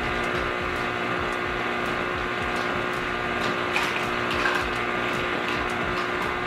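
Electric stand mixer running steadily, its beater turning through thick mashed sweet potato pie filling in a steel bowl, with a motor hum throughout. A few light clicks come near the middle.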